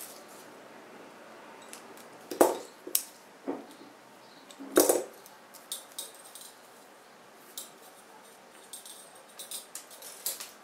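Copper jewellery wire and small metal hand tools being handled, with a few sharp metallic clicks and taps against the work surface, the loudest about five seconds in, followed by small faint ticks of the wire being bent.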